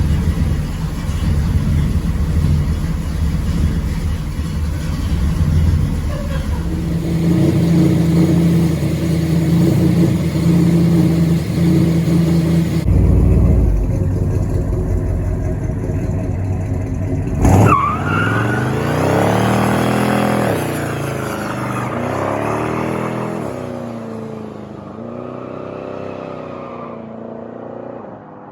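454 big-block V8 of a 1979 GMC El Caballero running with its exhaust leaks repaired: a deep, steady rumble, then a sharp rev about two-thirds of the way through. Several rising and falling revs follow and fade out near the end.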